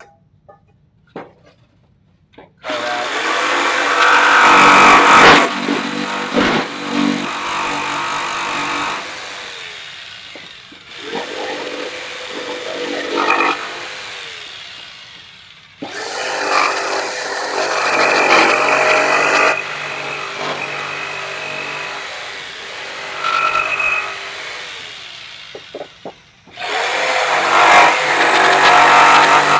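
Corded jigsaw cutting through a pine board. It starts about two and a half seconds in and runs in four long cuts with brief pauses between them.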